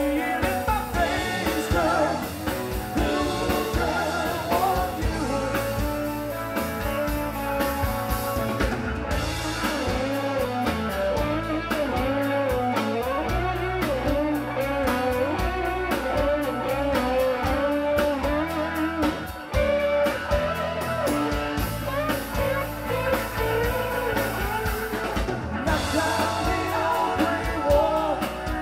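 Live rock band playing a song, with electric guitars, a drum kit with cymbals, keyboard and a lead vocal.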